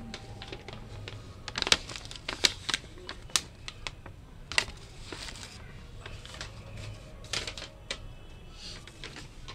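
A bubble-wrapped parcel and a folded paper invoice being handled, giving sharp, irregular crinkles and clicks.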